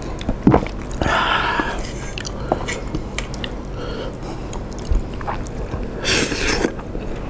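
A person eating instant tom yum seafood noodles close to the microphone: chewing, with scattered wet smacking clicks. Two longer hissing sounds come about a second in and about six seconds in.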